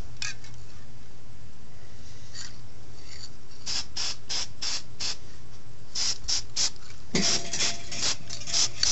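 Spray painting: a paint sprayer let off in short hissing bursts, in quick runs of about three a second, over a steady low hum.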